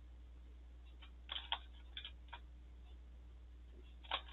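Meffert's Ghost Xtreme twisty puzzle being rotated by hand, its layer clicking as it passes into its stop positions, of which it has only three per turn. Faint sharp clicks come in a quick cluster about a second and a half in, again around two seconds, and once more near the end.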